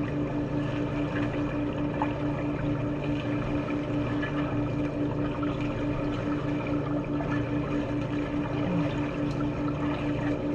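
Steady watery swimming-pool noise under a low hum that pulses about five times a second.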